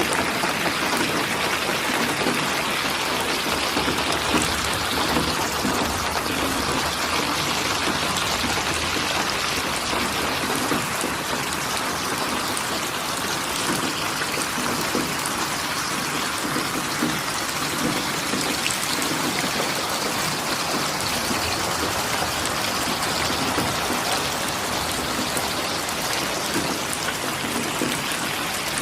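Steady rain falling, an even dense hiss of many drops on a surface.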